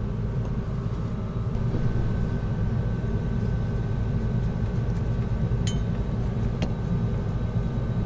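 A steady low mechanical hum with a faint high whine above it, and two light clicks a second apart about two-thirds of the way in.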